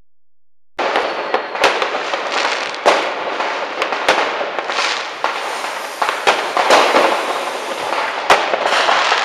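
Many fireworks and firecrackers going off at once: a dense, continuous crackle of bangs with sharper single bangs every second or two. It starts abruptly about a second in.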